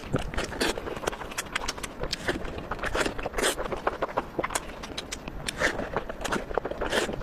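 Close-miked eating: a person chewing crunchy food, with many sharp, irregular crunches and wet mouth clicks.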